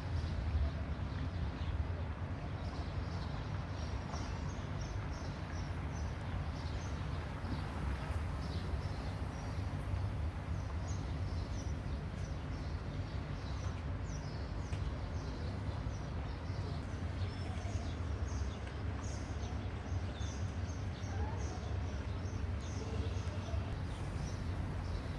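Small birds chirping repeatedly in short high notes, more often in the second half, over a steady low rumble.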